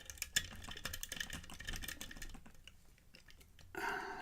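A lock pick raking and clicking against the pins of an Ideal Security pinned lock while it is under tension: rapid, irregular small metallic clicks that thin out after a couple of seconds. A brief low hum follows near the end.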